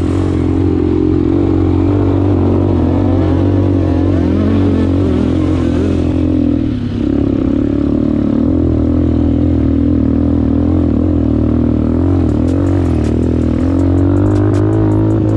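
Eagle Motorsport 250cc quad engine running under load on a rough dirt trail, its revs rising and falling with the throttle, with a brief drop about seven seconds in. Light clicking and rattling join in near the end.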